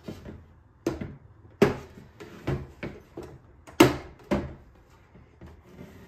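Hard plastic bird-feeder parts being handled and fitted together, the green perch going onto the feeder body: a string of sharp knocks and clicks, two of them louder than the rest.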